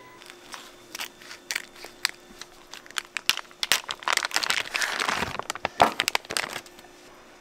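Crinkling and crackling of something being handled: scattered sharp clicks at first, thickening into a dense crackle through the middle, then stopping abruptly about a second before the end.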